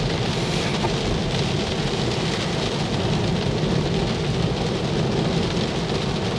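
Heavy rain beating on the roof and glass of a Tesla Model 3, heard from inside the cabin as a steady, loud hiss with a low rumble.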